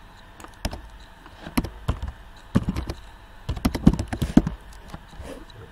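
Typing on a computer keyboard: an irregular run of key clicks that come thickest about three and a half to four and a half seconds in.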